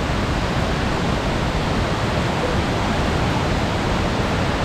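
Bomburu Ella waterfall: water rushing steadily over rock cascades.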